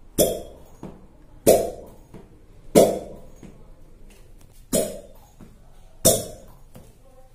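Glass cups being set onto an oiled back during fire cupping, each sealing with a sharp pop that rings briefly. Six pops come one after another, mostly about a second and a half apart.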